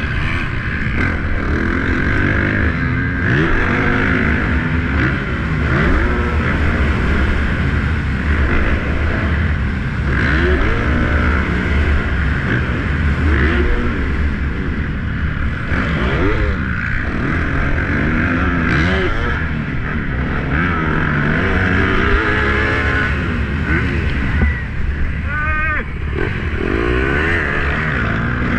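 Yamaha YZ450F single-cylinder four-stroke dirt bike engine revving up and falling back over and over as the rider accelerates, shifts and brakes around a motocross track. A steady low wind rumble on the helmet-camera microphone runs underneath.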